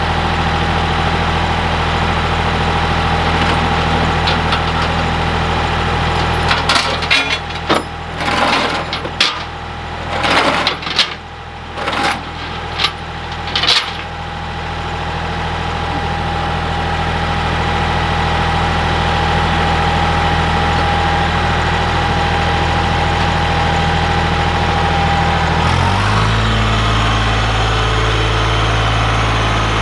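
Ford 1710 compact tractor's three-cylinder diesel engine running steadily, with a string of loud knocks and clanks from about 7 to 14 seconds in. About 26 seconds in, the engine's note changes and grows deeper.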